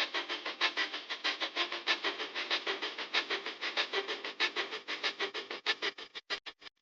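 Soldering machine cycling at high speed, a fast, even clatter of mechanical clicks at about seven a second.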